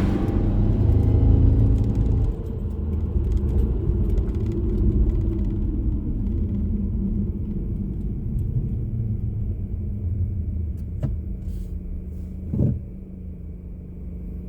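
Car driving, a steady low engine and road rumble that is loudest for the first two seconds, drops suddenly, then eases off as the car slows. There is one short knock near the end.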